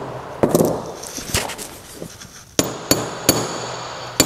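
Hammer blows on a drift driving the old ball bearing out of a Wico X type magneto's bearing housing: about six sharp strikes. The later strikes come quicker and each leaves a thin high metallic ring.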